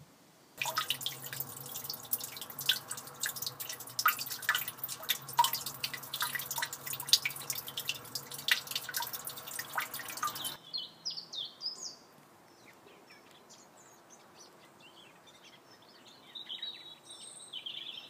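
Water trickling and dripping over mossy stones in a small runnel, a dense run of drips that cuts off abruptly about ten seconds in. After it, birds chirp in short high calls.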